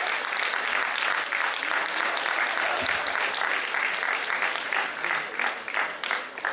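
Audience applauding, a dense round of clapping that thins out near the end into a few scattered claps.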